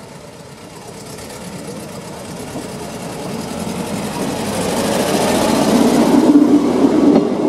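Engine of a Klv 12 rail motor trolley running as the trolley approaches and passes close by. It grows steadily louder and is loudest about six seconds in.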